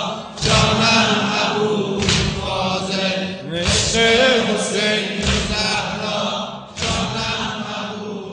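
Men's voices chanting a Shia noha in unison, with massed chest-beating (sineh-zani) in which the hands strike together about every second and a half.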